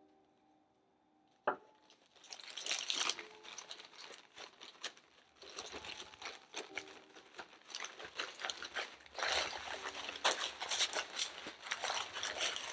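Plastic bag crinkling and rustling as it is squeezed and kneaded by hand, working crushed biscuit crumbs into melted butter. A sharp click about a second and a half in comes before the crinkling starts, and the crinkling goes on in uneven waves.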